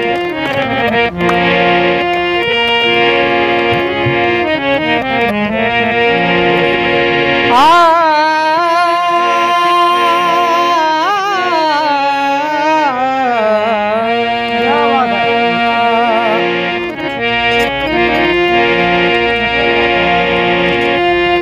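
Harmonium playing held chords as the introduction to a song. About eight seconds in, a man's voice joins with a long drawn-out sung phrase, wavering and sliding in pitch, for about eight seconds, then the harmonium carries on alone.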